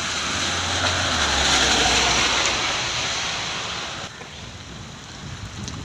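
An SUV driving past on a rain-flooded road: engine hum and tyre swish through the water swell to a peak about two seconds in and fade by about four seconds. Steady heavy rain continues underneath.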